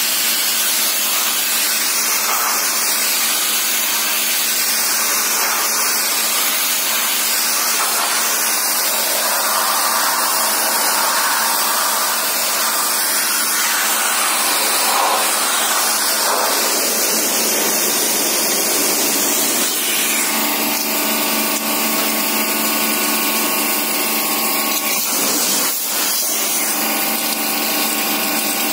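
Pressure washer running steadily, its pump motor whining under the hiss of the high-pressure water jet spraying through a radiator's fins. About two-thirds of the way in, a steadier multi-tone hum from the machine comes to the fore.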